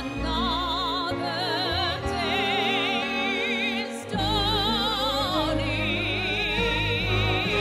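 A woman singing with a wide vibrato on long held notes, backed by an orchestra. About four seconds in, a deep bass swells in beneath the voice.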